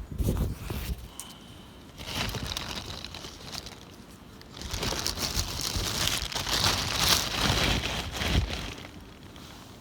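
Crinkling and rustling of handled material, in two spells: a shorter one about two seconds in and a longer, louder one from about halfway through until near the end.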